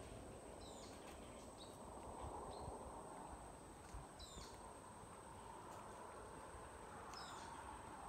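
Faint outdoor ambience of small birds giving short, high chirps every second or so over a steady high-pitched insect whine, with a few low bumps of the phone being handled.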